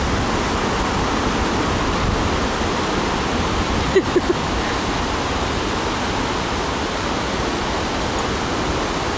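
Ocean surf breaking and washing up the sand in a steady rush, with three quick short sounds close together about four seconds in.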